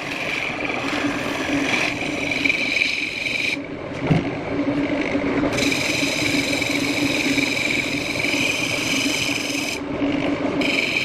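Wood lathe running with a steady hum while a turning tool scrapes and cuts the spinning wood. The high cutting sound stops for a couple of seconds about four seconds in, where there is a single knock, and again briefly near the end, as the tool comes off the wood.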